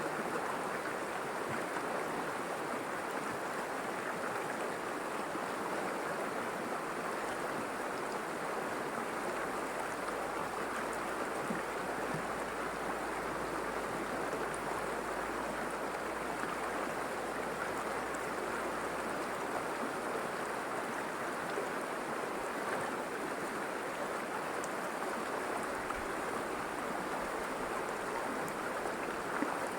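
River water flowing and rushing over rocks, a steady continuous wash of sound.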